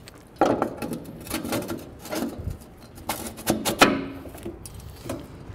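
A cap being pushed and worked by hand onto a grain vac's round metal inlet pipe: a run of knocks, clicks and rubbing, the sharpest knock a little before four seconds in, then only faint handling.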